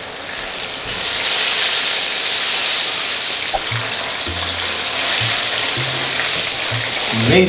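Breaded chicken pieces lowered into a pan of hot oil and frying, a steady sizzle that swells about a second in. Background music with low bass notes plays underneath.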